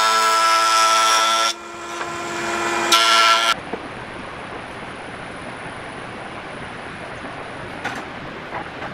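Table saw cutting through a slab of dried tree stump: a loud, steady whine of many tones that dips about a second and a half in, builds again, and cuts off suddenly at about three and a half seconds. After that only a low steady hiss with a couple of light taps.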